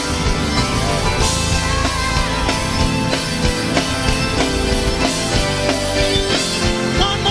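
Live gospel band playing loud instrumental music with a full drum kit and sustained chords, with no singing.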